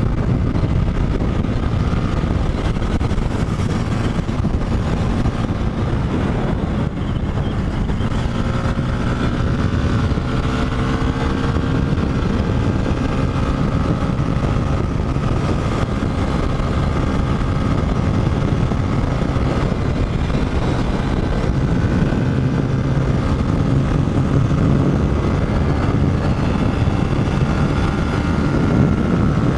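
Motorcycle engine running at road speed, its pitch drifting gently up and down, under a steady rush of wind on the microphone.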